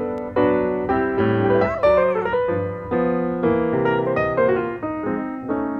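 Piano music: notes and chords struck about twice a second, each fading before the next.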